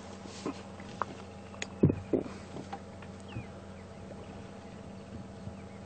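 Elephants browsing in the bush: a couple of short sharp snaps of twigs and branches about two seconds in, over a steady low hum.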